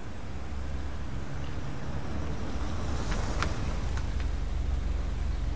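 Car approaching and pulling up at the kerb: low engine and road noise growing louder, with a few short clicks a little past the middle.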